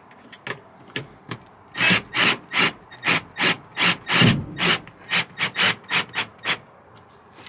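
Cordless drill working its bit into a half-inch plywood ceiling framing strip held overhead, in a run of short strokes, about three a second. The strokes start about two seconds in and stop about a second before the end.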